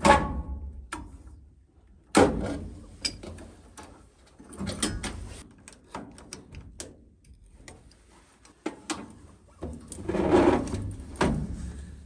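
Irregular knocks, clicks and clattering of hand tools against the metal parts of a furnace's gas valve and piping as they are worked on, with louder clanks at the start, about two seconds in, and near the end.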